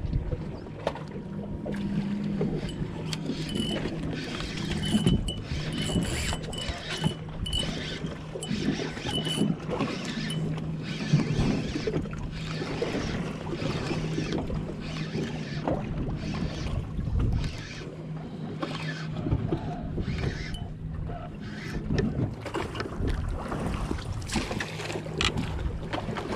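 Boat's outboard motor running at idle with a steady low hum, under a wash of wind and water noise. Scattered knocks and clicks run through it.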